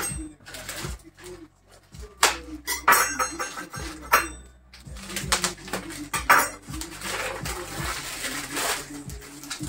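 Paper packaging of a spice-infusion kit crinkling and rustling in spells as it is handled, with a few light clicks on the counter.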